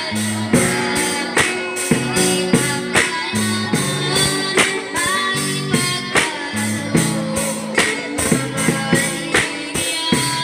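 Live amplified band music: a girl's voice singing a Tagalog praise song over her own drum-kit beat, with guitar accompaniment and regular drum and cymbal hits.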